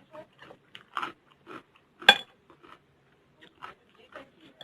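Close-up chewing and crunching of chatpate, a crunchy Nepali snack of noodles, bhujia and vegetables, in many short crackly bites. About two seconds in comes one sharp clink of cutlery against the dish, the loudest sound here.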